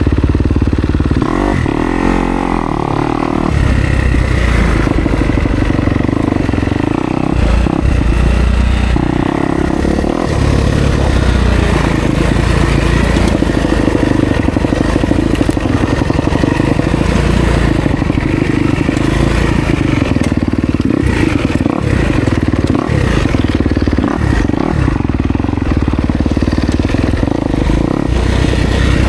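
Kawasaki KX250X dirt bike engine running on a trail ride, its revs rising and falling as the throttle is worked, with occasional knocks and clatter from the bike over rough ground.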